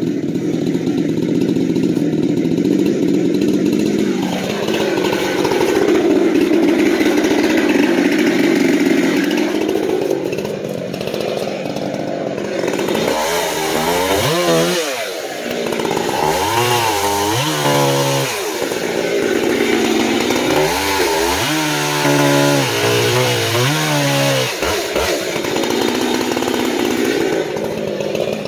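Jonsered 2186 two-stroke chainsaw running. It holds a steady pitch for about ten seconds, then is revved up and let fall back several times in the second half.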